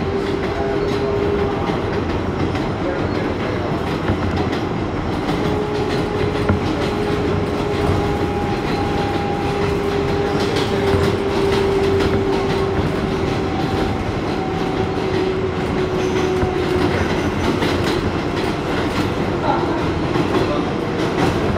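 New York City Subway 7 express train running at speed, heard from inside the car as it runs through a station without stopping. Steady wheel-on-rail rumble with a held motor whine and scattered rail-joint clicks.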